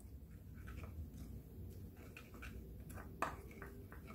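Wooden spoon stirring a soy-sauce and chili-flake seasoning in a ceramic bowl: faint wet scraping with light taps of the spoon against the bowl, and one sharper tap about three seconds in.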